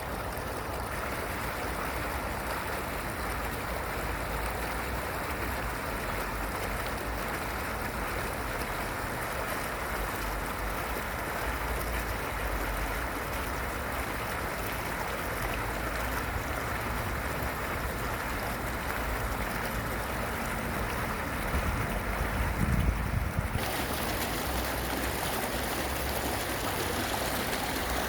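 Fountain water splashing down in a steady rush. A few low bumps come about three-quarters of the way through, and just after them the rush turns suddenly brighter and hissier.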